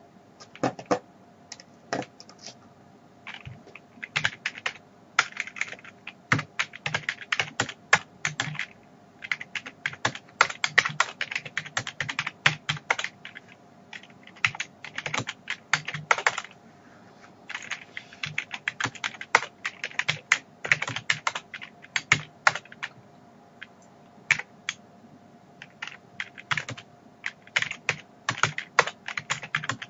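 Typing on a Compaq desktop keyboard: fast runs of key clicks, broken by short pauses of a second or so.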